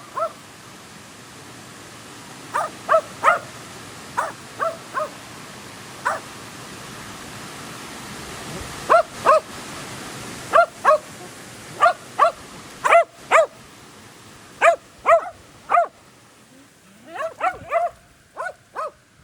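Dog barking: about two dozen short, high-pitched barks, mostly in quick pairs and little clusters, over a steady hiss.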